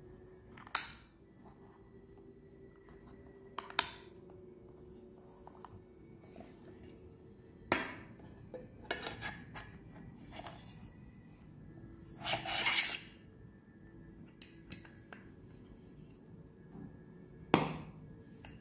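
Sharp metallic clicks and clinks from the aluminium case and steel bits of a precision screwdriver set being handled: four loud clicks spread out, smaller ticks between them, and a short rattling scrape about two-thirds of the way through.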